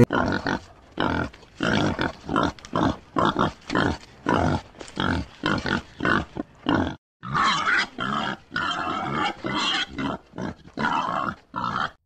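Bearded pig grunting over and over in short, quick grunts, about three a second, with a brief break about seven seconds in.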